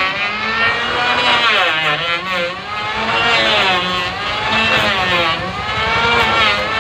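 Handheld electric planer running while being pushed along a wooden plank, its motor whine repeatedly dipping and rising in pitch.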